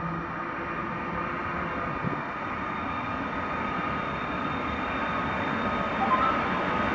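Electric locomotive-hauled passenger train, a PKP Intercity EU160 Griffin, rolling into the station, its rumble slowly growing louder as it approaches. A short squeal is heard about six seconds in.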